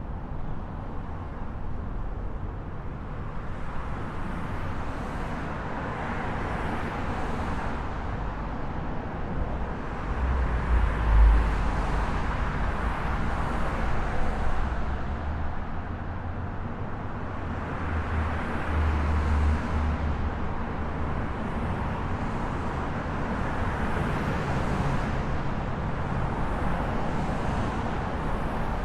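Highway traffic: a steady wash of tyre and engine noise as vehicles pass one after another, swelling and fading every few seconds. A deeper rumble rises twice, about a third of the way in and again about two thirds of the way through.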